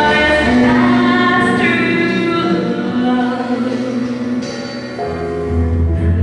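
Live music with singing: long held sung notes over accompaniment, with a deeper low note swelling in near the end.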